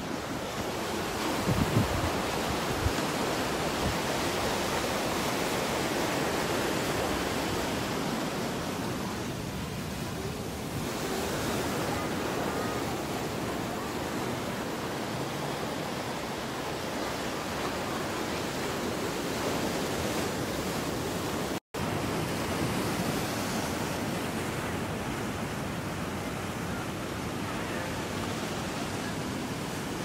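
Ocean surf breaking and washing over rocks: a steady rushing of waves, with a brief dropout about two-thirds of the way through.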